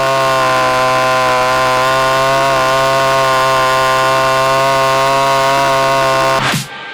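Stihl chainsaw on an Alaskan chainsaw mill running at a steady high speed while ripping a log lengthwise into boards. The engine note holds an even pitch and cuts off suddenly near the end.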